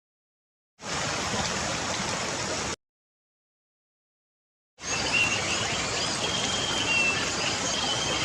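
Steady rushing noise, in two stretches that start and stop abruptly with dead silence between them, the second carrying a few faint high chirps.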